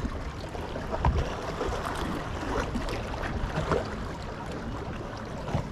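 Wind buffeting the microphone over small waves lapping at a rocky lakeshore, with a brief knock about a second in.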